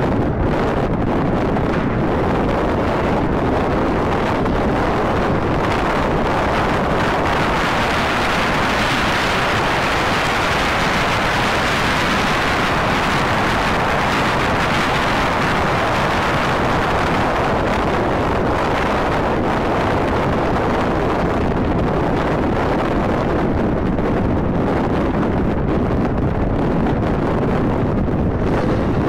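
Steady rush of wind on the microphone and road noise from a moving car, heard from inside the car; the hiss grows brighter for a stretch in the middle.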